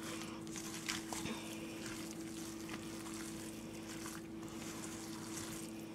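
Spatula stirring oil-coated cooked orzo in a stainless steel pot: soft, wet scraping and squelching. A steady low hum runs underneath.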